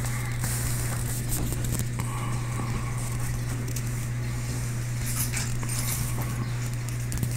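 Steady low hum of an aquarium pump, with scattered faint clicks and crackles over it.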